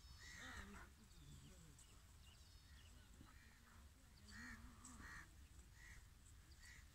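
Faint, short bird calls repeating every second or so over a low background rumble.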